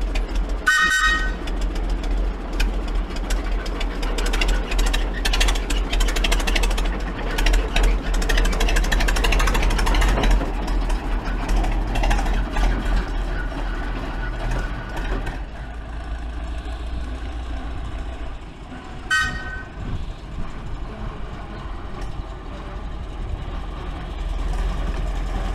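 Hunslet narrow-gauge diesel locomotive running with a steady mechanical clatter as it moves along the track, louder in the first half. Its horn gives a short blast about a second in and again about three-quarters of the way through.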